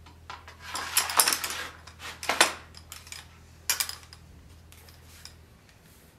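A sword and its fitted scabbard being handled: metal scraping and clinking in a few bursts. The loudest comes about a second in, another near two and a half seconds, and a sharp clink just under four seconds.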